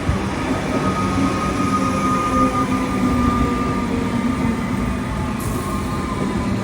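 Melbourne Metro electric suburban train running, a continuous rumble with a steady low hum and a steady high whine that is strongest in the first few seconds.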